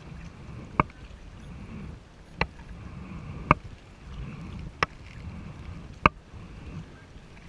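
Kayak paddling: a steady swish of water with a sharp, ringing knock about every second and a quarter, five in all, in time with the paddle strokes.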